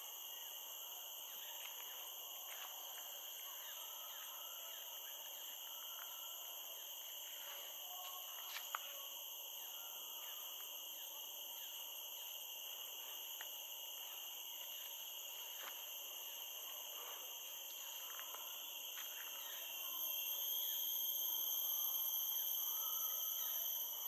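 A steady, high-pitched insect chorus rings at several pitches at once, the highest growing louder about 20 seconds in. Scattered faint clicks and one sharper click about 9 seconds in sound over it.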